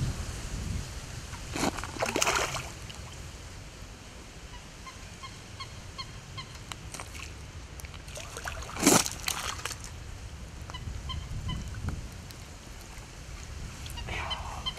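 Geese honking repeatedly, while a hooked fish splashes at the surface as it is drawn to a landing net, with a loud splash about nine seconds in and a smaller one about two seconds in.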